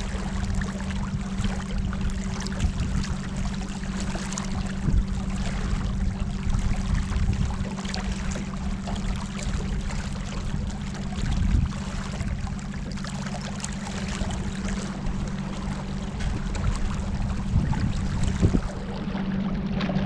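Boat motor running at a steady pitch, with water rushing past the hull.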